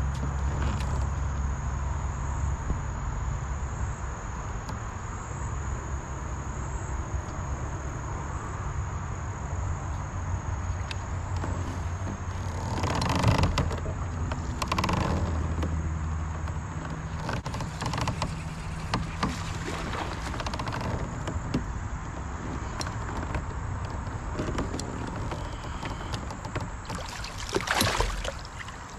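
A steady low hum that dies away about halfway through, then water splashing and knocks at the kayak as a hooked bass is brought alongside and lifted out near the end.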